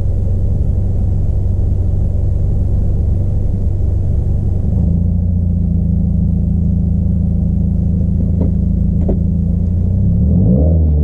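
Subaru WRX's turbocharged flat-four engine idling with a steady low rumble. The sound turns smoother and steadier about halfway through, two short sharp clicks come a little later, and near the end the revs start to climb.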